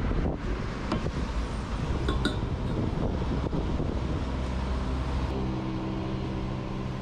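Metal fuel nozzle clinking a few times against a motorcycle's tank filler as it is put in. About five seconds in, a steady hum from the petrol pump sets in as fuel starts flowing into the tank.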